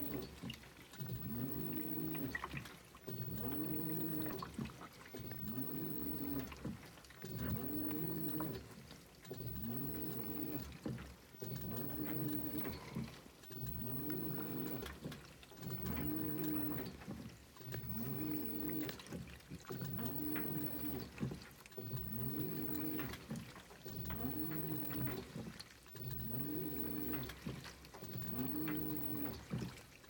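2012 LG WaveForce top-load washer's direct-drive motor agitating the wash, its whine rising and falling in pitch about once every second and three-quarters as it drives the wash plate one way and then the other. The tub is overloaded, so the clothes are struggling to turn over.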